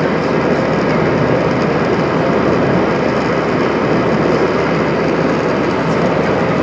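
Steady, loud roar of an Airbus A320-232's IAE V2500 turbofan engines and airflow, heard from a cabin seat over the wing during the climb after takeoff, with a faint steady hum under it.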